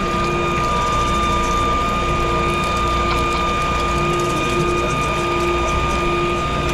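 Electric pipe-threading machine running steadily, turning a black iron pipe while the die head cuts threads, with cutting oil pumped over the pipe.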